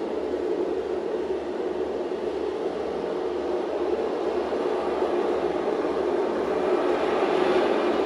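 Steady rushing, rumbling noise of a sea-storm soundscape playing through the installation, swelling slightly near the end.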